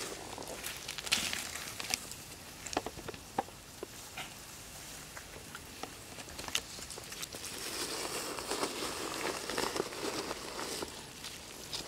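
Footsteps and movement over dry leaves and gravel: scattered small clicks and crackles, with denser rustling in the second half.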